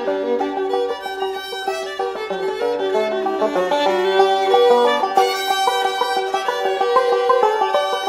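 Instrumental background music with a quick melody of many short notes.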